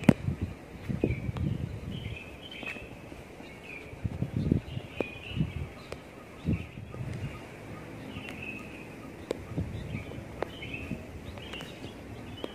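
Small birds chirping in short, repeated calls about once a second over outdoor ambience, with irregular low bumps underneath and a sharp click at the very start.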